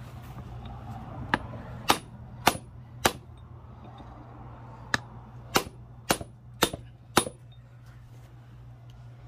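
Hammer blows on a brass drift held against a U-joint bearing cap in a driveshaft yoke, driving the cap out. There are four strikes about half a second apart, then a pause and six more, each with a short metallic ring.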